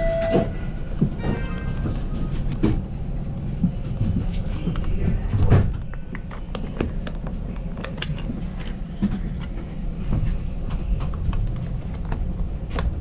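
Toronto TTC streetcar running on its rails: a steady low rumble with frequent clicks and knocks from the wheels and car, and a louder thump about five and a half seconds in. A brief pitched tone sounds right at the start.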